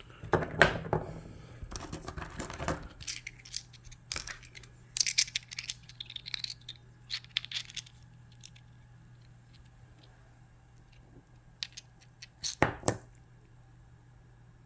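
Cut rock pieces being handled: irregular clicks, knocks and scrapes of stone, busiest in the first half, with a last cluster of clicks near the end, over a faint steady low hum.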